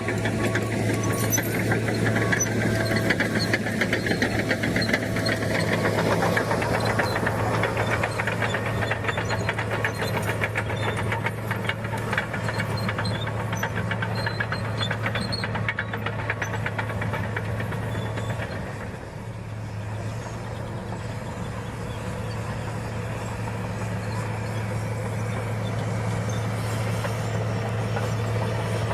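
Diesel engine of a crawler earthmoving machine running steadily under load, with a low steady hum and a dense rapid clatter from about six to eighteen seconds in; the level dips a little near nineteen seconds and the engine carries on more evenly.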